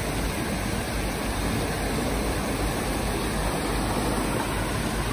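Steady rush of turbulent water pouring out below a concrete dam's gates, an even noise with no breaks.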